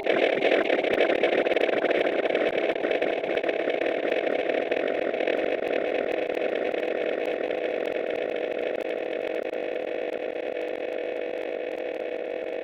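A steady, engine-like buzzing drone that slowly fades.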